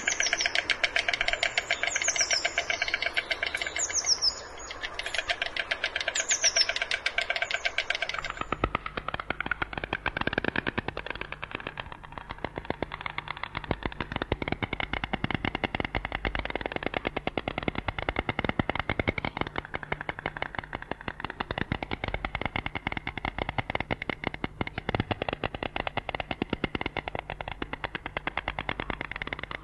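White storks clattering their bills: a long, rapid rattle of clicks. For about the first eight seconds, high falling chirps of small birds sound over it.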